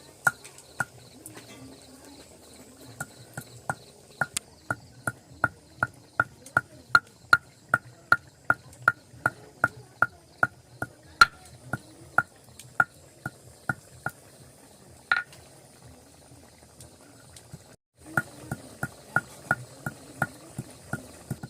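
Steady rhythmic knocking of a kitchen utensil during cooking, about three knocks a second, each with a short ring. The knocking stops briefly near the end, then resumes.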